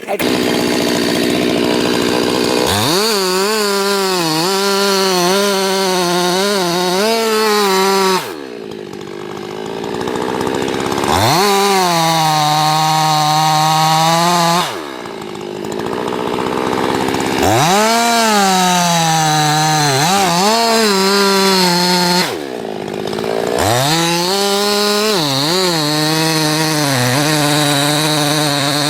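Chainsaw running at full throttle, cutting into a big tree trunk, its pitch sagging and wobbling under load. Three times, at about eight, fifteen and twenty-two seconds in, it drops back to idle for a couple of seconds and then revs up into the cut again.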